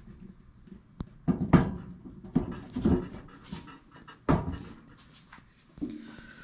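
Steel griddle top being lowered onto its burner base: a few irregular knocks and scrapes of sheet metal, the loudest about a second and a half in and again past four seconds, with heavy breathing from the person lifting it.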